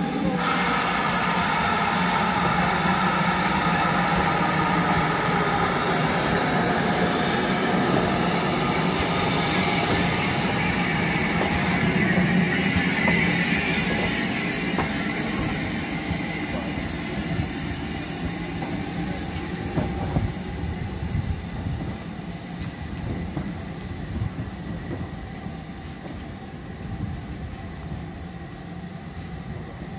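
GWR Large Prairie 2-6-2 tank steam locomotive moving slowly past at close range and pulling away. The noise is loudest as it passes about twelve seconds in, then fades as it draws off, with a few sharp clicks near the two-thirds mark.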